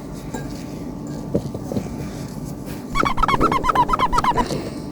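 Bird-like chirping sound effect: a quick run of about a dozen short high chirps lasting about a second and a half, starting about three seconds in, over a low background with a couple of faint clicks.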